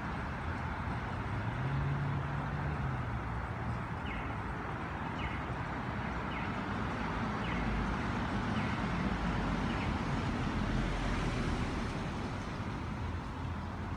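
City road traffic: a steady rumble of passing vehicles, with one engine hum swelling and fading about two seconds in. A faint high chirp repeats six times, about once a second, in the middle.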